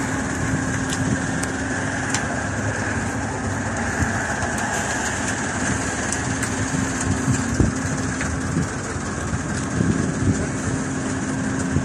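Heavy diesel engine idling steadily with a constant hum, with a few light knocks, the loudest about two-thirds of the way through.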